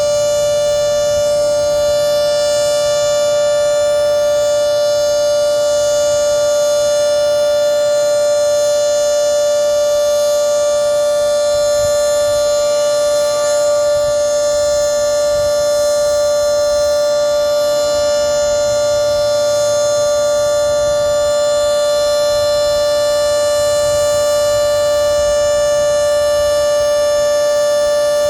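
Federal Signal 2T22B two-tone outdoor warning siren, top intake blocked, sounding a steady alert signal: a loud held chord that neither rises nor falls.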